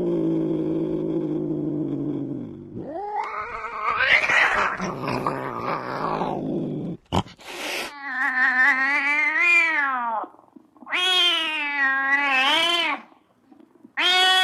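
Angry domestic cat: a low drawn-out yowl, then a harsh, noisy growl-and-hiss, a short sharp hiss about seven seconds in, then three long wailing yowls that rise and fall in pitch.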